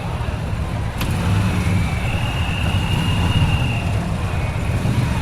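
Outdoor protest-rally street ambience: a steady low rumble of background noise, with a sharp click about a second in and a faint held high tone for a couple of seconds in the middle.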